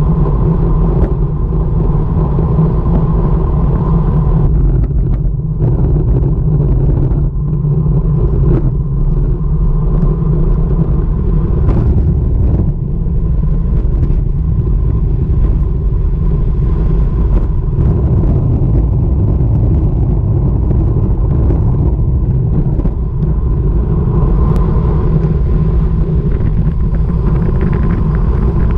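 Wind rushing over an action camera's microphone on a road bike ridden at about 45 km/h: a loud, steady, deep rumble, with scattered short knocks from the road.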